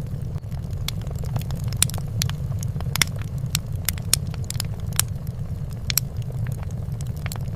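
Fireplace fire crackling: irregular sharp pops and snaps, several a second, over a steady low rumble.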